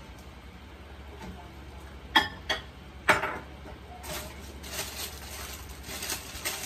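Kitchen utensils knocking and clinking against cookware on the stove: three sharp knocks a little past two seconds in, then softer scraping and stirring strokes.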